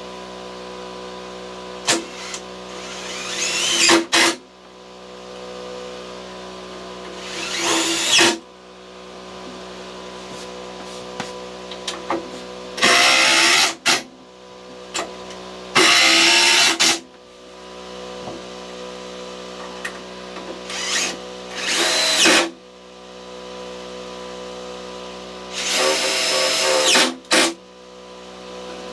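Cordless drill driving screws into a wooden shelf board, in a series of short runs of about a second each, several building up before stopping sharply.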